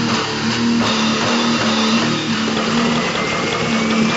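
Loud distorted noise-rock music: a dense wall of noise over a low note that pulses on and off, with a thin high whine rising slowly in pitch from about halfway through.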